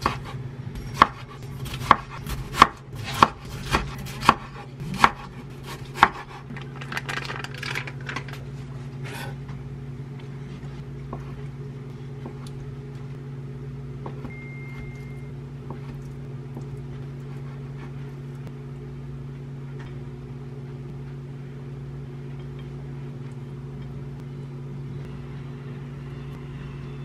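Kitchen knife slicing a tomato and knocking on a wooden cutting board, about nine sharp knocks over the first six seconds, then softer, quieter slicing through fresh mozzarella. A microwave oven hums steadily underneath throughout.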